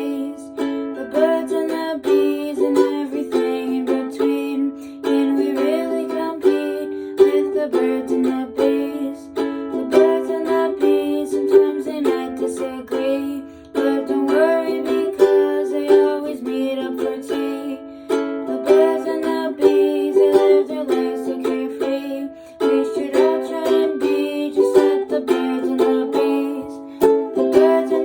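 A song played on a strummed string instrument, the chords repeating in a steady rhythm.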